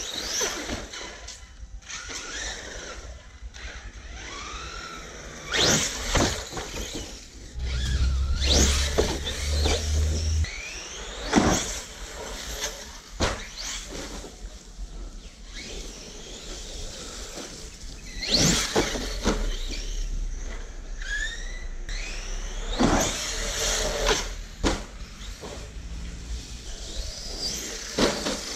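Brushless electric motor of a Hobao MTX RC monster truck on an 8S battery, whining up and down in repeated bursts of acceleration, with tyres scrubbing and squealing on concrete.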